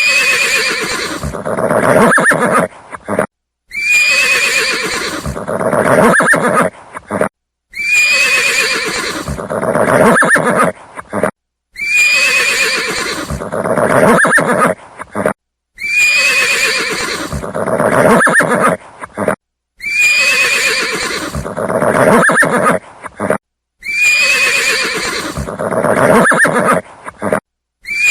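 A horse whinnying, the same neigh repeated about every four seconds, seven times over. Each call starts with a high, quavering cry that falls away into lower, rougher sound, then breaks off into a short silence.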